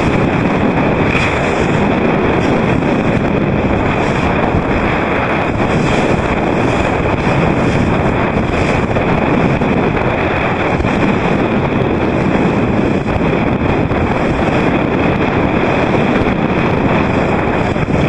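Strong wind buffeting the microphone over rushing water and waves, a steady loud noise.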